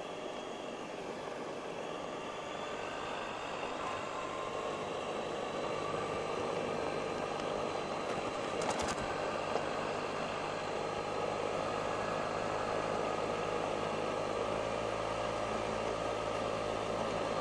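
Suzuki Burgman 650 maxi-scooter's twin-cylinder engine running while riding along, growing somewhat louder over the first several seconds, with one brief click about nine seconds in.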